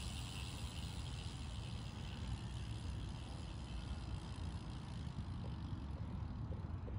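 Steady wind rumble on the microphone with a faint hiss, while riding a road bicycle; the hiss thins out near the end.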